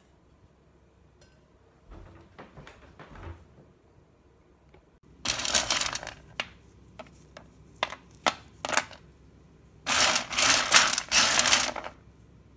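Cracked black walnut pieces rattling and scraping across a metal baking sheet: a dense clatter about five seconds in, a few separate clicks, then a second longer clatter near the end.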